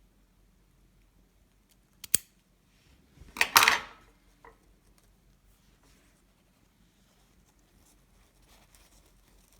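A sharp click about two seconds in, then a short scissors snip about a second and a half later, the loudest sound.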